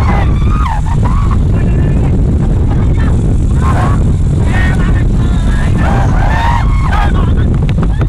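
Loud, steady low rumble of a white-water rapid churning around an inflatable raft, with rafters' high-pitched shouts rising over it several times.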